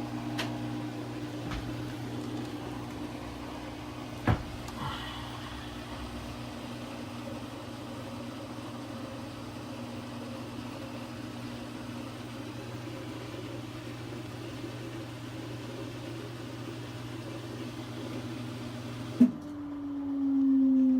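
Samsung washing machine running its rinse-and-spin cycle with a steady hum, and a single sharp click about four seconds in. Near the end the hum cuts off suddenly with a click, and a ringing tone starts.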